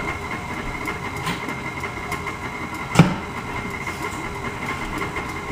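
KitchenAid stand mixer running steadily, its beater mixing butter and almond flour in the steel bowl, with a sharp knock about three seconds in.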